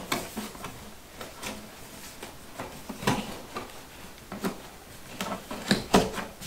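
Cardboard product box being handled and its lid folded shut and pressed down: scattered light knocks, taps and scrapes, the loudest about three seconds in and near the end.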